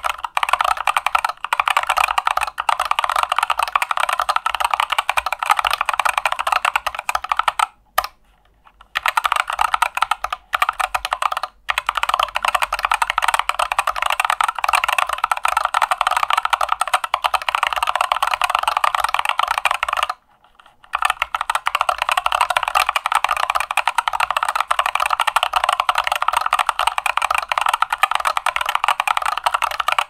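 Typing test on a YMDK Wings Alice-style split mechanical keyboard with Boba U4T tactile switches in a stiff integrated 1.5 mm aluminium plate and XDA keycaps: a dense run of sharp, clacky keystrokes, crazy loud. The typing pauses briefly twice, about 8 seconds in and again about 20 seconds in.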